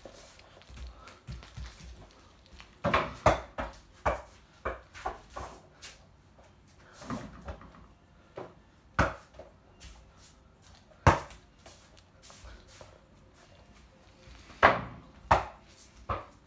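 About a dozen scattered sharp knocks and thuds, in a cluster around three to five seconds in and then singly: a small ball hitting an over-the-door mini basketball hoop's backboard and the door, and bouncing on the floor.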